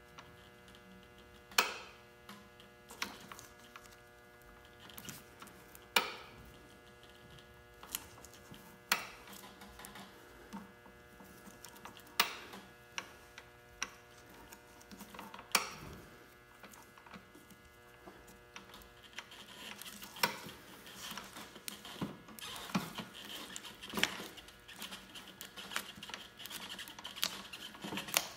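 Sharp clicks and taps as a plastic Honda mower rear wheel is turned by hand and rubber bicycle-tire tread is pressed onto it, every second or few at first, then busier with rubbery rustling in the last third. A steady mains hum runs underneath.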